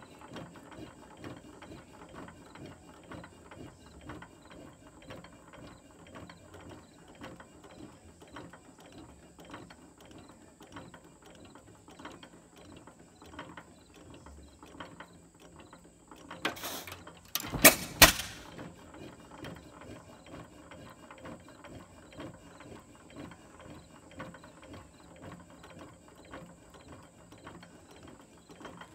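6 hp Associated hit-and-miss engine running, coasting with a steady rapid clicking from its moving parts, then firing with a few loud sharp bangs about two-thirds of the way through.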